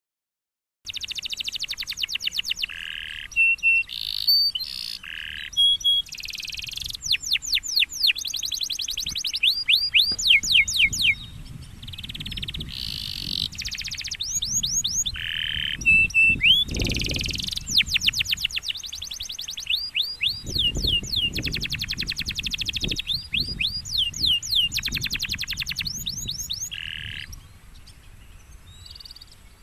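Domestic canary singing a long continuous song of rapid trills, fast repeated chirps and sweeping notes, starting about a second in and thinning to a few quieter notes near the end.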